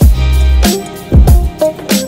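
Background music with a steady drum beat and a deep bass line.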